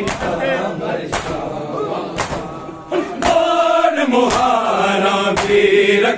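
Men's voices chanting a Punjabi noha lament in chorus, with a sharp slap of hands on bare chests (matam) about once a second, in time with the chant. The chanting drops for a moment about halfway through, then comes back louder.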